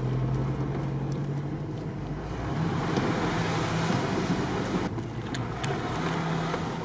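Cabin noise of a Jeep Wrangler driving slowly on a wet, muddy dirt track: a steady low engine hum under tyre, road and wind noise, with a few faint clicks.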